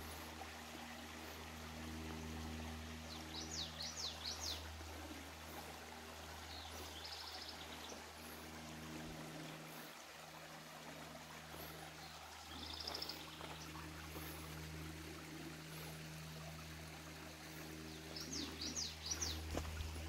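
A small creek trickling and splashing over rocks, with birds calling over it: a burst of quick rising notes a few seconds in and again near the end, and two short rapid trills between.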